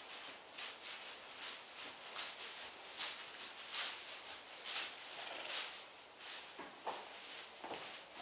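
A Clydesdale foal's hooves and a person's footsteps swishing and rustling through deep straw bedding, in quick irregular steps.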